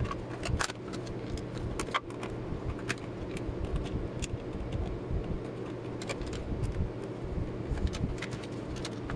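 Scattered clicks and light taps as a UNI-T UT90A multimeter's plastic case is handled and screwed back together with a screwdriver, over a steady low hum.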